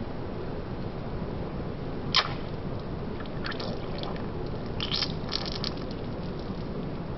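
Hand-pumped trigger spray mechanism, stripped down to its piston, spring, housing and nozzle, being worked to spray water. There is a sharp click about two seconds in, then short squirting spurts in a few quick clusters, over a steady low background hiss.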